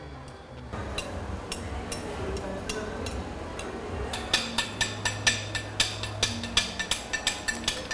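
Background music: a light ticking percussion rhythm over a low held bass note, the ticks coming faster about halfway through.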